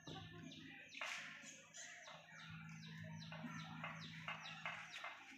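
Birds chirping: a steady run of short, high calls that fall in pitch, a few each second, over a faint steady low hum.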